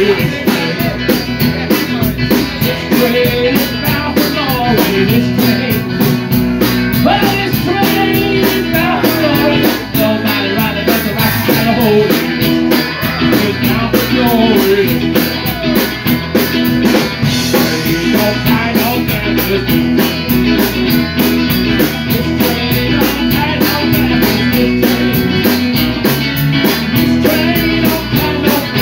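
A live rock band playing loudly and steadily: two electric guitars and a drum kit, with a sung vocal.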